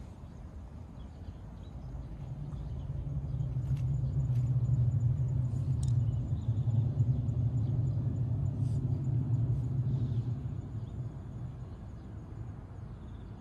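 A vehicle passing at a distance: a low rumble that builds over a few seconds, is loudest midway, then fades away.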